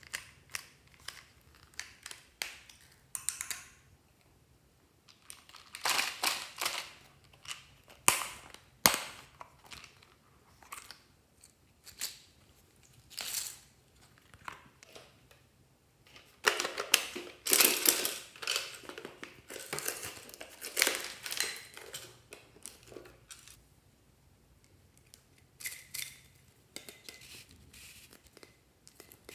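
Hard plastic toys handled by hand: a string of short clicks, taps and knocks, with a longer stretch of rustling and rattling about halfway through as a plastic case is worked open.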